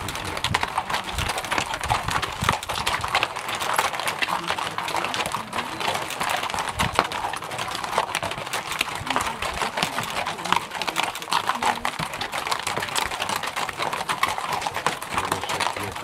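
Hooves of a string of loaded pack mules clip-clopping steadily on a rocky, dusty trail, many hoofbeats overlapping.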